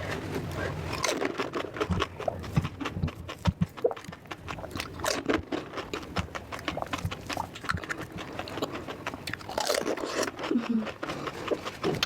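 A person chewing and biting crunchy food close to the microphone: a dense, irregular run of crisp crunches and clicks.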